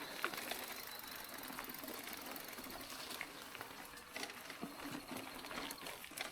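Mountain bike rolling along a dirt trail: tyres crunching over loose gravel, with irregular clicks and rattles.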